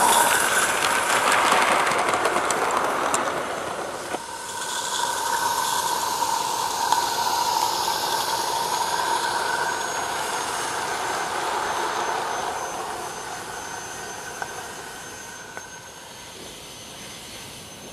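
G scale live steam model locomotive, a Roundhouse Lady Anne, running along the garden track with its wagons: steam hissing and wheels running on the rails. Loudest as it passes close at the start, dipping about four seconds in, then fading over the last few seconds.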